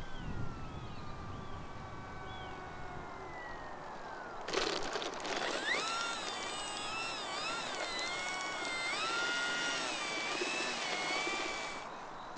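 Whine of the Durafly Slow Poke's electric motor, falling steadily in pitch as the throttle comes back. About four and a half seconds in there is a short burst of noise, then the whine rises and falls repeatedly with the throttle, a thin steady high tone above it, before cutting off shortly before the end.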